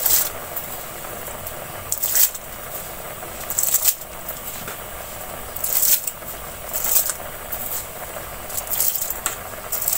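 Soaked basmati rice being poured in batches into a large aluminium pot of boiling broth: a series of short splashing pours, roughly every one to two seconds, over the steady sound of the rolling boil.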